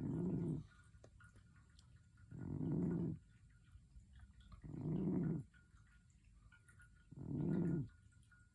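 Domestic cat snoring in deep sleep: four rough, low snores, each under a second long, coming evenly about every two and a half seconds.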